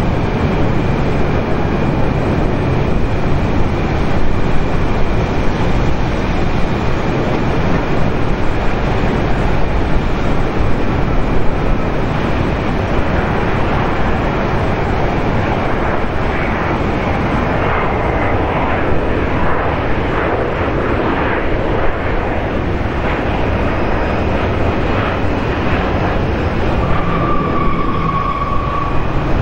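Boeing 737-800 airliner's CFM56 jet engines, a steady loud rumble as it lands and rolls out on the runway.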